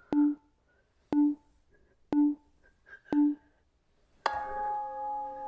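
Background music: a short, clicky low note repeats about once a second, then a sustained ringing chord of several steady tones comes in about four seconds in.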